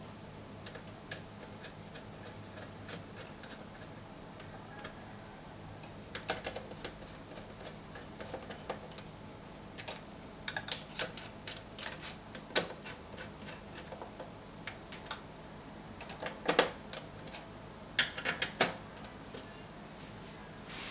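Screwdriver working on the screws and small parts of an opened Sony CFS-W600 cassette deck mechanism: scattered small clicks and ticks of metal on metal and plastic, coming in short clusters, over a faint steady hum.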